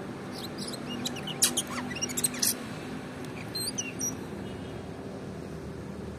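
Oriental magpie-robin (kacer) singing: a quick burst of varied high chirps and whistles, then after a short pause a brief phrase of a few more notes, over a steady low background hum.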